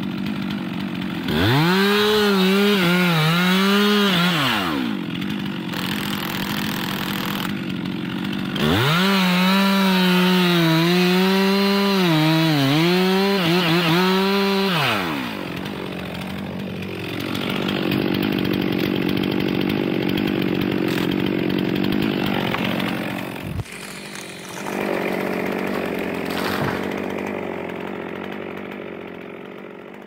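Stihl MS 362 C two-stroke chainsaw revved from idle to full throttle in two bursts, the second longer, its pitch wavering and dipping as the chain cuts into the trunk in a felling cut, then dropping back each time. Later comes a duller, noisier stretch and a single sharp crack about three quarters of the way in.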